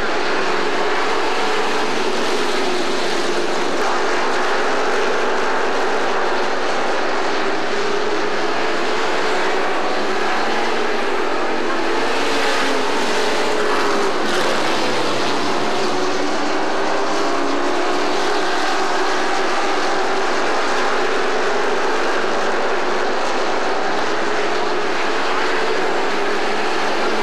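A field of pro race trucks running laps together, their Chevrolet crate-motor V8s blending into one continuous drone. Several engine notes rise and fall as trucks come past and pull away.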